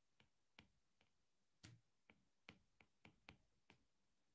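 Near silence with about ten faint, irregular ticks from a stylus tapping on a pen tablet as words are handwritten.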